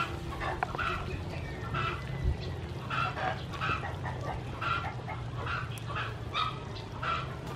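Domestic fowl calling nearby, a run of short repeated calls about two a second, over a steady low hum.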